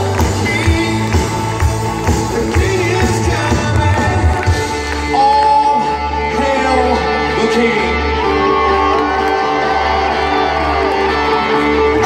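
Live rock band playing over a PA, heard from the crowd: singing over bass, guitar and keyboards. The drums beat steadily for the first few seconds, then drop out, leaving held bass and keyboard notes under the vocal.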